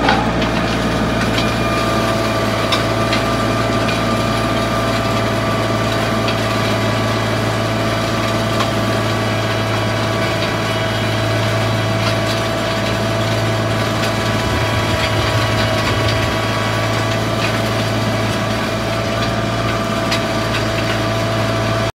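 Compact tractor's engine running steadily under load while it pulls a three-point arena groomer through arena dirt, with a steady high whine over the engine's drone. The sound cuts off suddenly at the very end.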